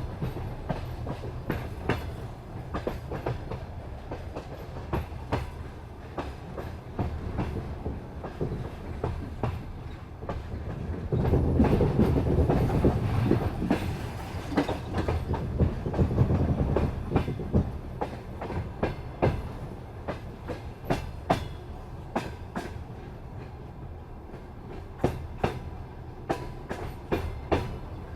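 Passenger train's wheels clicking over rail joints at speed, a running clickety-clack over a steady rumble, which swells into a louder rush for several seconds about a third of the way in.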